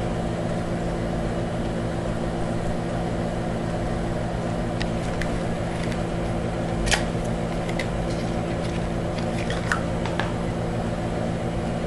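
Steady mechanical hum of an appliance running in the room, with a few faint clicks from handling a small lipstick case.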